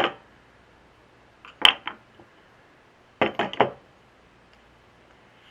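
Small metal carburetor parts and tools clinking and knocking as they are handled and set down: one clink at the start, another a little under two seconds in, and a quick run of about four at around three and a half seconds.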